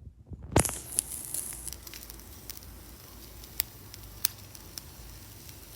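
Food sizzling and the fire crackling on a barbecue grill: a steady sizzle with scattered sharp pops, the loudest about half a second in.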